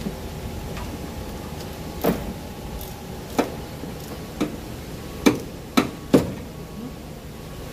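Hand tools knocking and clicking against parts in a truck's engine bay, about six sharp strikes at uneven spacing, the loudest in the second half, over a steady shop hum.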